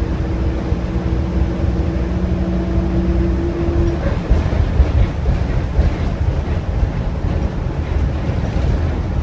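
Optare Versa single-decker bus running on the road, heard from inside the passenger saloon: a steady low engine and drivetrain rumble with road noise. A steady hum over it stops about three and a half seconds in, while the rumble carries on.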